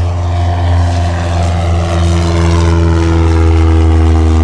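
Piston engine and propeller of a light aircraft running steadily, with a low hum and a pitch that rises a little about halfway through.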